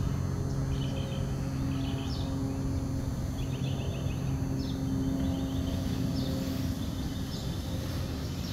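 Small birds calling: short trills of quick high notes repeating about once a second, with a few brief falling whistles. Under them runs a steady low engine-like hum, the loudest sound throughout.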